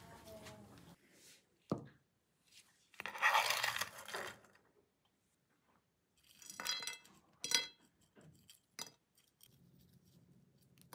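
Kitchen handling sounds: a metal spoon clinking against a glass salad bowl and a loud rustling scoop of dressed lettuce. About two-thirds of the way in, croutons are tipped from a spoon onto the salad and land with a few crisp crackles and clicks.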